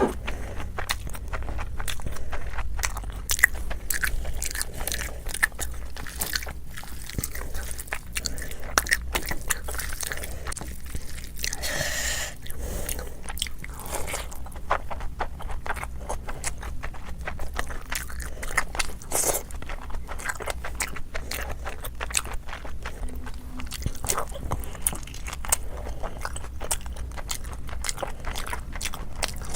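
Close-miked biting and chewing of chicken, many irregular wet crunches and mouth clicks, over a faint steady low hum.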